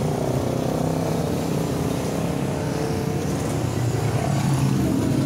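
Steady low drone of a running vehicle engine.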